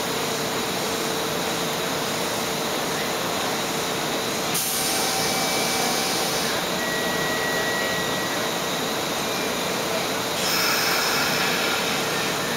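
Steady hiss and hum of stopped electric trains at a station platform, with a faint steady whine. A louder hiss comes in about four and a half seconds in for a couple of seconds, and again near the end.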